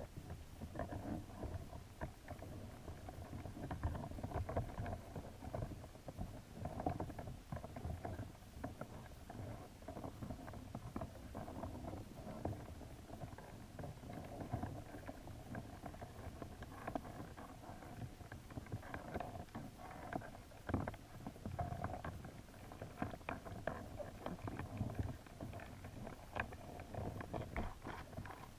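Underwater sound picked up by a GoPro submerged in a crayfish trap: a muffled, continuous low rumble of water with many small irregular clicks and taps throughout.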